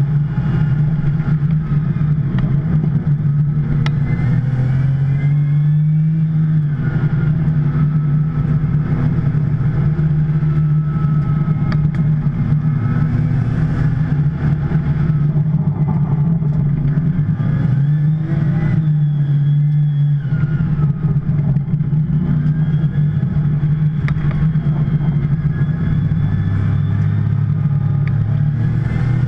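2010 Porsche 911 Turbo's twin-turbo flat-six running hard at race pace. The engine note climbs and drops several times through gear changes and lifts, over steady road and wind noise.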